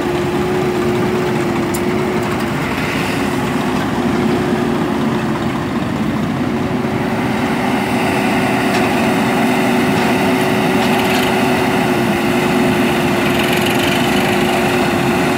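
Diesel engines of a JCB backhoe loader and a Swaraj 744 FE tractor running steadily, a constant engine hum with no change in speed.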